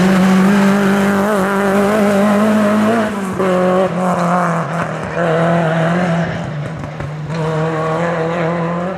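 Renault Clio rally car's engine held at high revs as the car drives through a bend and away up the road. The engine note breaks briefly about three times and eases off toward the end.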